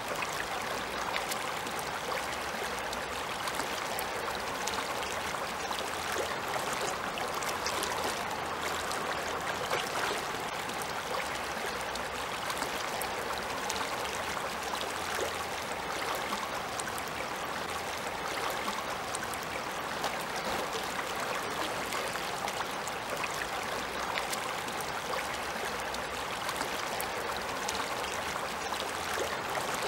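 Shallow river running over a bed of stones and pebbles: a steady babbling and rushing of water.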